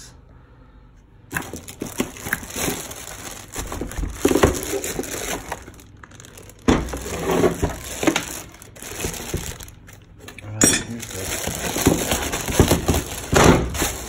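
Cardboard packaging and plastic wrapping being handled and pulled open, with crinkling, scraping and scattered knocks starting about a second in.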